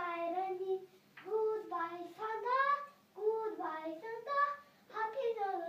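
A young child singing a tune in short sung phrases with brief pauses between them.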